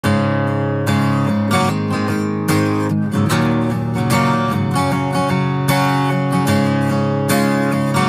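Background music: a strummed acoustic guitar playing steadily, with no singing.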